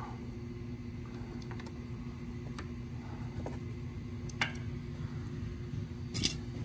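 Oil filter pliers gripping and turning a tight spin-on oil filter: scattered small clicks and scrapes of metal jaws on the filter can, with a sharper click about four seconds in and a short rustle near the end, over a steady low hum.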